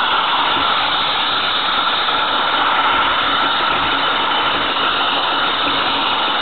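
A 16 mm scale garden railway train running along its track, a steady mechanical noise of wheels and running gear heard close up from a camera riding on one of its wagons.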